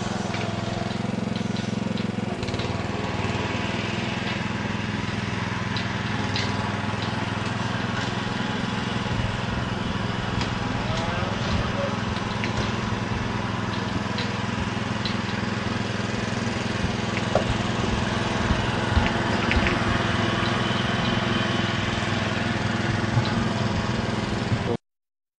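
Engine idling steadily, with scattered sharp knocks and clanks, the loudest of them a few seconds before the end; the sound cuts off suddenly near the end.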